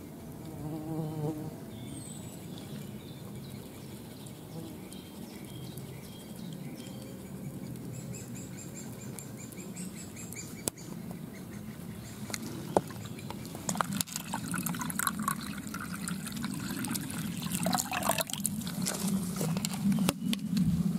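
Insect buzzing over a shallow muddy puddle, joined in the second half by splashing, dripping and clinks as a metal kitchen sieve scoops through the water.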